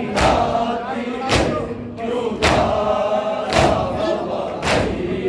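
A crowd of mourners doing matam, beating their chests in unison with a loud slap about once a second (five strikes), while between the strikes men chant the noha together.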